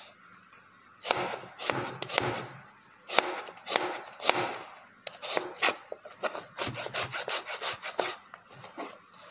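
Chef's knife slicing an onion into thin rings on a cutting board: a steady run of crisp cuts, about two to three a second, each ending in a tap of the blade on the board, starting about a second in.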